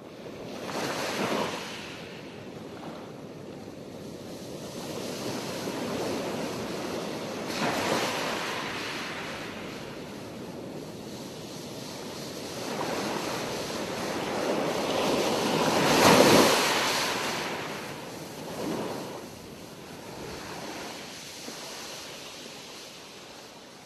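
Ocean waves washing on a shore: a steady rush that swells and ebbs in slow surges, the biggest about two-thirds of the way through.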